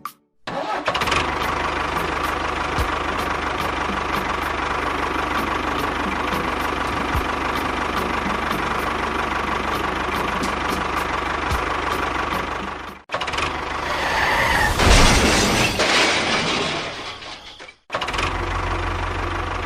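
Small engine running steadily. It cuts off abruptly about two-thirds of the way through, followed by a louder, rougher stretch. After another sudden cut near the end, the steady running resumes with a deeper hum.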